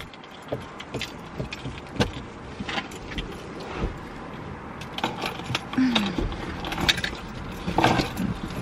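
Keys jangling among scattered small clicks, knocks and clothing rustle as a person gets into a car's driver seat and settles in.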